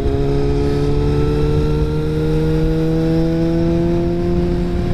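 Honda CBR600RR's inline-four running loud through a nearly unbaffled Two Brothers aftermarket exhaust. The revs climb slowly and steadily as the bike pulls in one gear.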